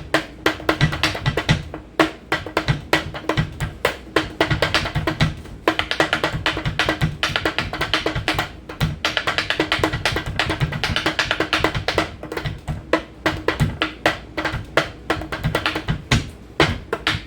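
Improvised hand drumming on everyday objects: a fast, uneven run of taps and knocks with a few brief pauses.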